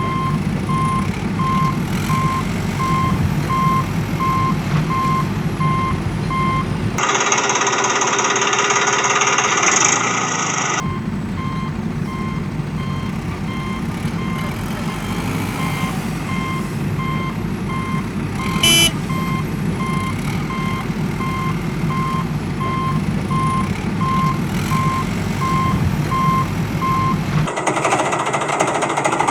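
Backhoe loader's reversing alarm beeping about twice a second over a running diesel engine. About seven seconds in, the beeping stops for roughly four seconds while a louder rushing noise plays, then the beeping and engine resume.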